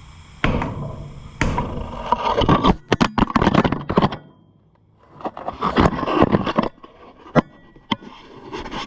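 Hammer striking a block of wood set on a seized piston of an old gas engine, knocking to break the piston free in its rusted cylinder. Single sharp knocks twice in the first second and a half, then clusters of rapid knocks and scraping, with a brief lull about halfway through and two more single knocks near the end.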